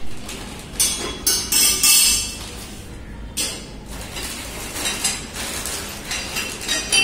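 Clear plastic bag crinkling in short bursts while the metal parts of a satellite dish mount clink as they are unpacked and set down on a tiled floor.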